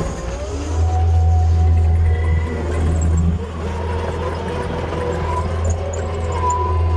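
Skid steer loader's engine running with a steady low drone, over which a whine shifts up and down in pitch as the machine works.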